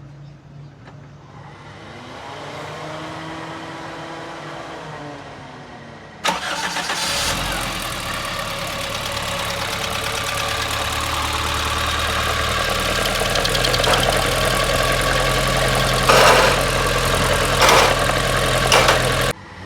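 Toyota Corolla GLi engine being cranked on the starter for several seconds, then catching about six seconds in and running, with a few brief louder surges near the end. It is run with the tappet cover off to find a noise problem.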